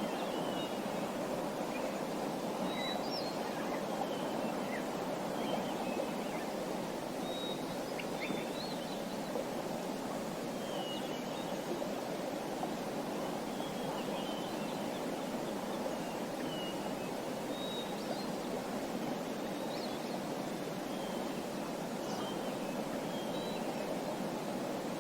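Small songbirds chirping in short, scattered calls over a steady rushing background.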